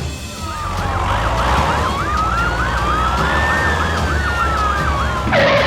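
Emergency-vehicle siren in a fast yelp, three or four rising sweeps a second, with a slower wail tone that rises and then falls beneath it, over a steady low rumble. A loud burst of noise comes near the end.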